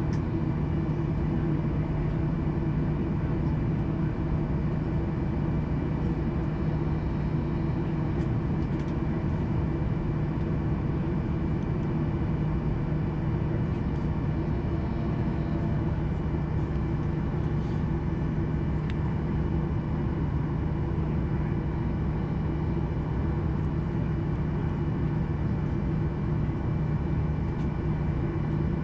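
Steady cabin drone inside a Boeing 737-800 on the ground before takeoff: engine and air-conditioning noise with two steady low hums under an even rush, holding level without change.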